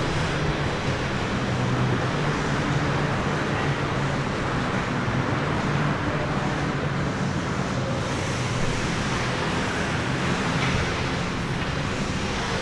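Ice hockey arena ambience: a steady wash of crowd and rink noise with a low hum underneath, no single event standing out.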